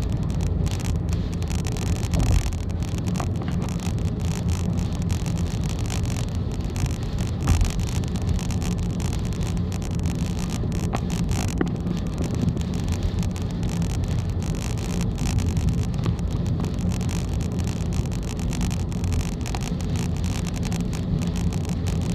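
Steady road and engine drone inside a car driving at expressway speed, with typhoon wind and heavy rain on the car.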